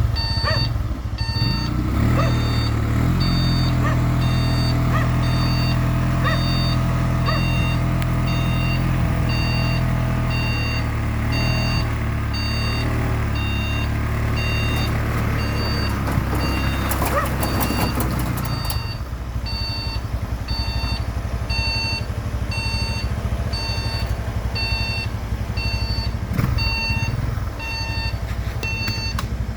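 Engine of a motorized dump cargo carrier running steadily, with a warning beeper sounding about once a second. A short clatter comes a little past the middle, after which the engine runs lower.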